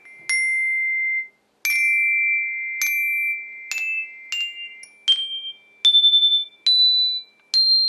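Homemade xylophone of aluminium bars suspended on string over an oak base, struck with a mallet one bar at a time up the scale: about nine bright metallic notes climbing in pitch. Each note rings on for a second or more after the strike, a long sustain.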